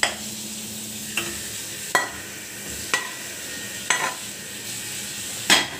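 Metal spoon knocking and scraping against steel cookware while thick barfi mixture is spooned onto a greased steel plate. About six sharp taps with a brief metallic ring come roughly once a second, the loudest near the end.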